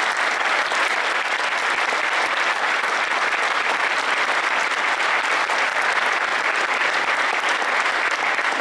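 Audience applauding steadily, with no break.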